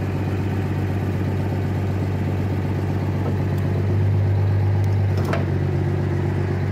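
A vehicle engine idling steadily, a little louder from about four seconds in, with a single short click or clank a little after five seconds.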